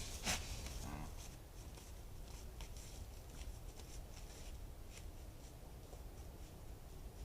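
A deer buck blowing a short, forceful snort through its nose about a quarter second in, with a weaker puff of breath about a second in. Faint rustling and ticking follow.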